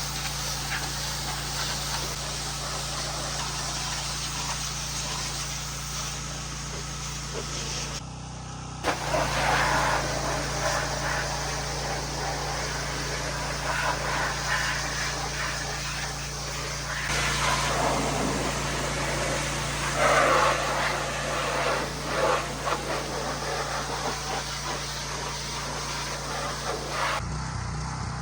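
Pressure washer spraying: the hiss of a hard water jet over a steady engine hum. The spray grows louder and rougher in the middle stretch as it hits the machine, in several cut-together clips.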